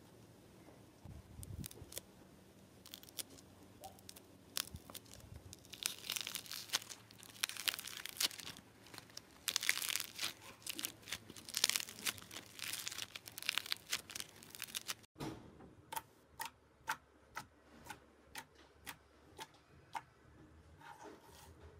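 Slime being squeezed and played with: a dense crackling and crinkling, busiest in two stretches. After an abrupt cut, a regular series of sharp pops comes about twice a second.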